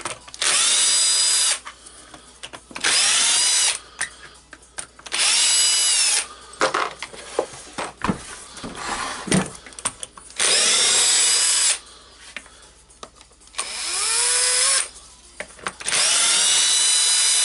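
Small Bosch cordless drill/driver backing out screws in six short bursts of about a second each. The motor whine rises in pitch at each start and then holds steady. Light clicks and knocks of handling come between the bursts.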